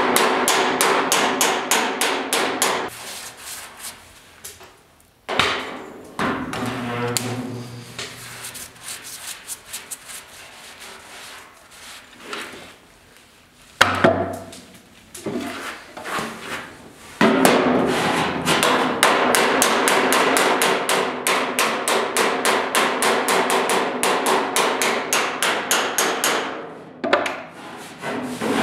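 Hand planishing hammer tapping steel body panel in fast, even strokes, working down a high spot on the repaired truck-bed inner panel. The hammering stops about 3 s in, leaving quieter handling sounds and a single knock. It starts again about 17 s in and stops near the end.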